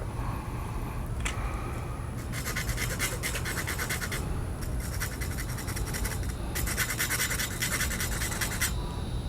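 A small file rasping back and forth on the thin metal tube of a fishing rod's chipped tip-top guide, cutting through it to remove the damaged tip. The rapid strokes come in three runs, starting about two seconds in, with short pauses between them.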